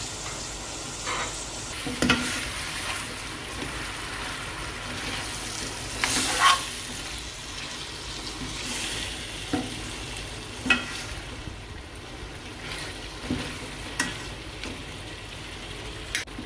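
Mutton and chopped tomatoes frying in oil in a stainless steel karahi, sizzling steadily while a metal ladle stirs them, scraping and clinking against the pan every second or two. The loudest clink comes about six seconds in.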